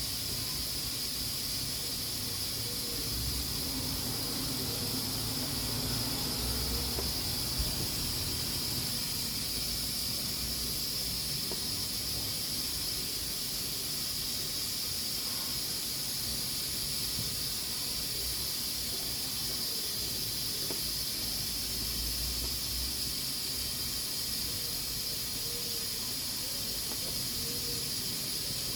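Pressure cooker cooking beans, hissing steadily as steam escapes from its valve, with one sharp click about seven and a half seconds in.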